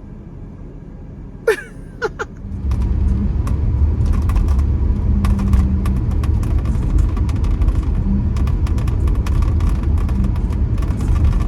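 Car driving, heard from inside the cabin: a steady low road and engine rumble that comes in suddenly about two and a half seconds in, with many light clicks and rattles over it. Before it, two short chirp-like sounds.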